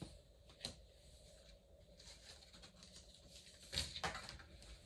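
Faint handling noises of a person moving objects on a table: a light click a little over half a second in, then a short cluster of taps and rustling near the end.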